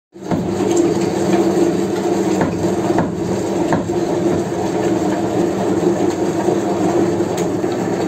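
Old meat mincer machine running as it grinds meat: a steady mechanical drone with a few sharp clicks scattered through it.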